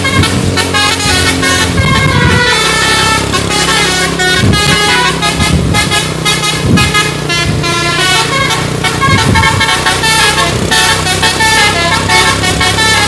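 Indonesian bus telolet (basuri) multi-trumpet horn playing a quick melody, its notes stepping up and down in rapid succession, with the bus's engine running steadily underneath.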